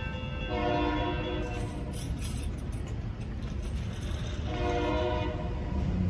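Freight locomotive horn sounding two blasts about a second long, some four seconds apart, over a steady low rumble.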